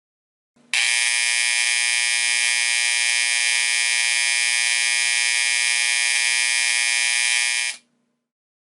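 AC-powered Faraday 7410 reed buzzer, a vintage fire alarm signal, sounding a steady, mostly high-pitched buzz for about seven seconds. It starts under a second in and cuts off sharply near the end.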